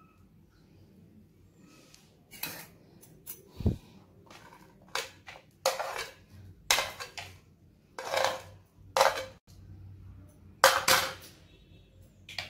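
A steel spoon and plastic serving plates clattering and knocking in a string of short, sharp clinks. One low thump comes about three and a half seconds in.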